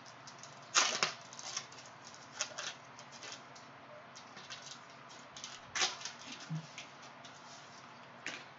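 Plastic-foil wrapper of a Prizm basketball cello pack crinkling and tearing as it is peeled open by hand: scattered crackles, the sharpest about a second in and again just before six seconds.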